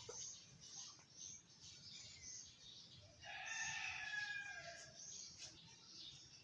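A desi (free-range) rooster crowing once, about three seconds in: a single long call lasting about two seconds that drops in pitch at its end. Faint high chirping runs underneath.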